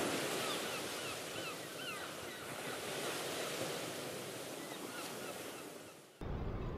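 Ocean surf washing, with a few short bird calls over it early on. The surf cuts off suddenly near the end and a different, lower steady sound takes over.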